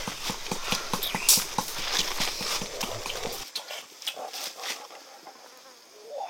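Rapid chopping with a knife on a wooden cutting board, about five even strokes a second, breaking off abruptly about three and a half seconds in.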